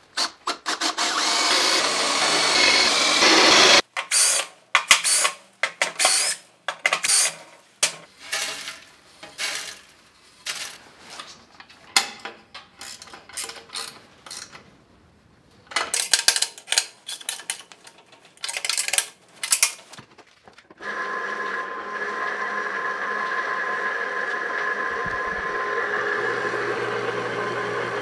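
A drill bores into a steel plate, followed by a long string of short, irregular bursts of mechanical noise with gaps between them. Late on, an electric motor starts and runs steadily with a constant hum, turning a gear reducer through a V-belt.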